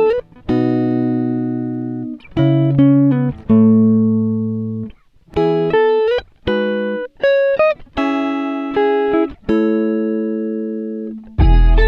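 Background music: a clean guitar plays held chords and short melodic phrases, broken by brief pauses. Near the end a fuller arrangement with heavy bass comes in.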